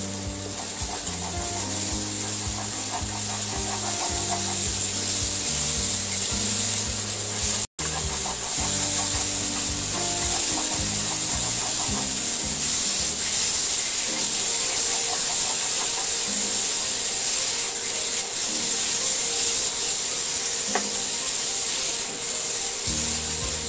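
A plastic spatula stirs and scrapes thick onion-and-spice masala around a non-stick kadai, with the paste sizzling steadily as it sautés.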